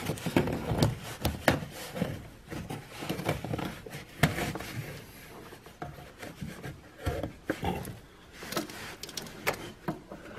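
Hands pushing and tucking floor carpet into place under a truck's dash: irregular rustling and scraping of the carpet, with scattered light knocks and clicks.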